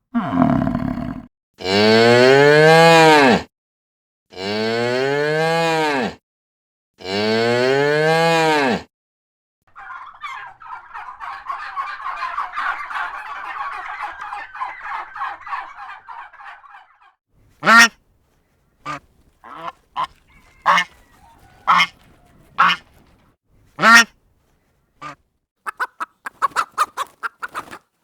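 A string of farm-animal calls. First, three long cow moos, each rising and then falling in pitch. Then a flock chatters for several seconds, followed by a series of short, sharp goose honks and a quick run of clucking calls near the end.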